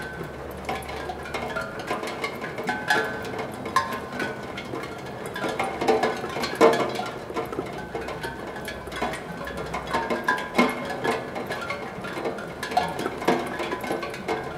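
Raindrops falling on a steel pan, striking its notes at random so that it gives scattered, irregular pings, each ringing briefly at its own pitch, among a patter of small drop taps.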